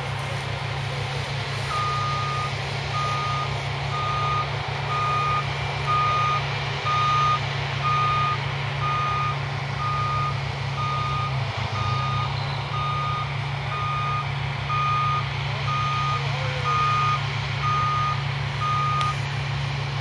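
New Holland CX8090 combine harvester's engine running steadily while a reversing alarm beeps about once a second, starting about two seconds in and stopping near the end.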